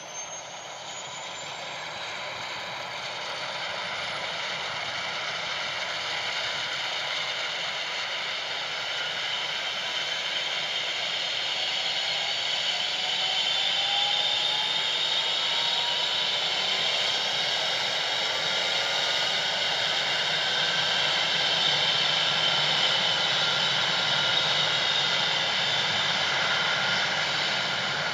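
Rescue helicopter's turbine engines running up before takeoff: a rushing noise with several whines that slowly rise in pitch, growing steadily louder over the first dozen seconds and then holding.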